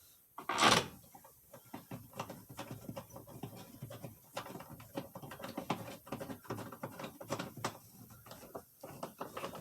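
Hand-turned Torx driver screwing the last screws into a plastic steering column cover: many small irregular clicks and scrapes, with one short louder rustle just under a second in.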